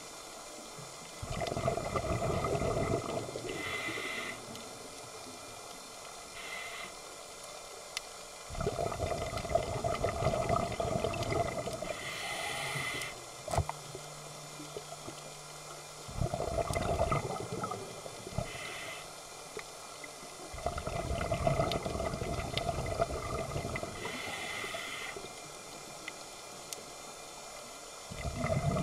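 A scuba diver breathing through a regulator, heard underwater: a rush of exhaled bubbles every six to eight seconds, each lasting two to four seconds, with short hisses of inhalation in between.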